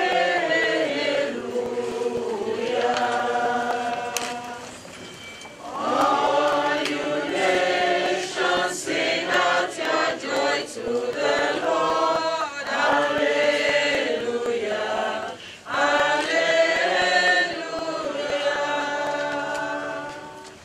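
A choir singing, with a brief lull about four seconds in before the singing picks up again; it fades out at the very end.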